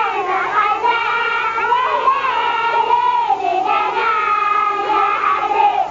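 A group of children singing together, with long held notes, stopping near the end.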